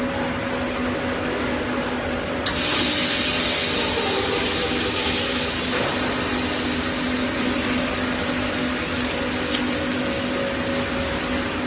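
TM-4500 vacuum membrane press running with a steady machine hum. About two and a half seconds in, a steady hiss of rushing air starts suddenly and keeps going.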